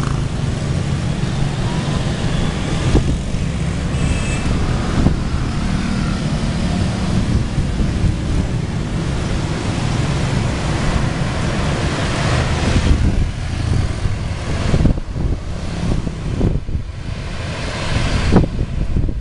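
Street traffic of motorbikes and cars going by, with wind buffeting the microphone in a steady low rumble that grows gustier near the end.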